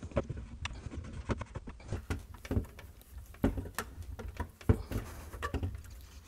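Plastic reverse osmosis filter housing being screwed onto its cap by hand: irregular clicks, knocks and scraping of plastic on plastic.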